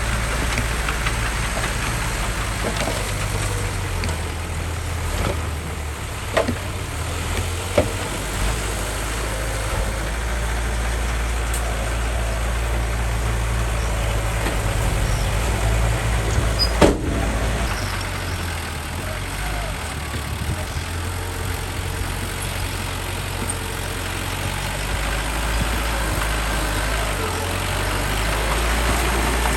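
Heavy earthmoving machinery's diesel engine running steadily, with a few sharp knocks, the loudest about 17 seconds in.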